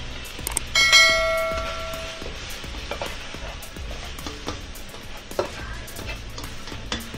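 Sliced pork and carrots sizzling as they are stir-fried, with a spatula clicking and scraping against the pan. About a second in, a single bell chime rings out and fades over a second or so, the subscribe-button notification sound effect.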